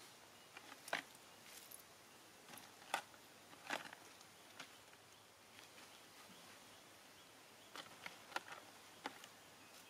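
Scattered light rustles and clicks of macaques' hands and feet moving over dry leaves and gravel, about ten in all, in small clusters over a faint steady hiss.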